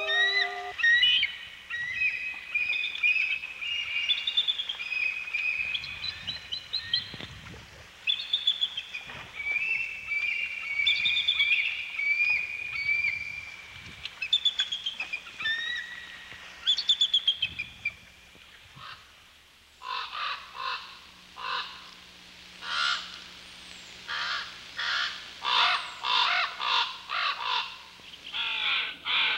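Bald eagles calling: runs of high, thin piping notes, repeated many times over the first two-thirds. After a short lull, crows caw in quick series of short, hoarse calls.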